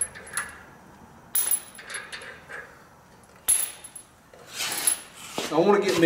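A few sharp metallic clinks, each with a brief ring, the loudest about a second and a half in and again about three and a half seconds in: loose steel lug nuts being handled at a truck wheel hub.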